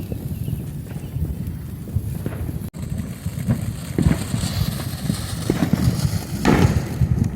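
Backyard fireworks going off: a dense run of irregular pops and crackles with some fizzing, and one louder bang about six and a half seconds in.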